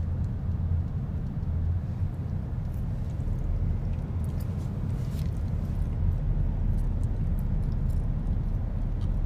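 Steady low rumble of a car's cabin, engine and road noise heard from inside the car, with a few faint clicks over it.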